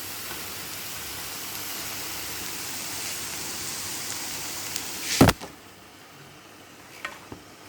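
Grated beetroot sizzling in a covered pan on a low flame, a steady hiss. About five seconds in comes one loud, sharp knock, after which the sizzle is gone and only faint clicks remain.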